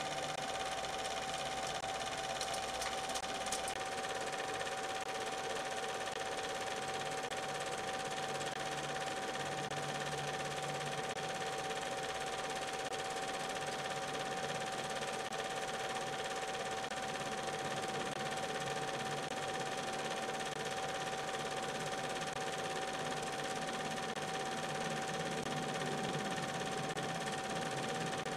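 Cine film projector running: a steady mechanical whir with one constant tone over it.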